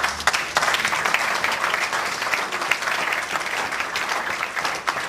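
Audience applauding: a crowd's clapping that starts about half a second in, holds steady, and thins out near the end.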